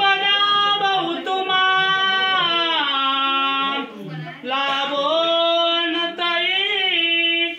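A group of men and children singing mangalashtak wedding verses together without instruments, in long drawn-out notes, with a short break about four seconds in.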